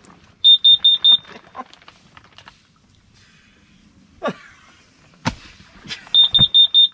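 Kidde Nighthawk carbon monoxide detector sounding its alarm: a group of four short, loud, high-pitched beeps, then after a gap of about five seconds another group of four. The four-beep pattern is the signal for carbon monoxide. A couple of handling knocks fall between the groups.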